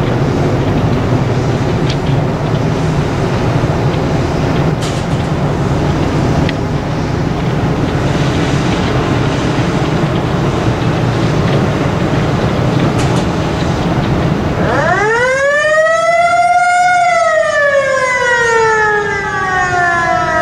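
Steady low rumble of the passing ship's engine. About fifteen seconds in, a motor-driven warning siren winds up steeply in pitch, peaks, then slowly winds down.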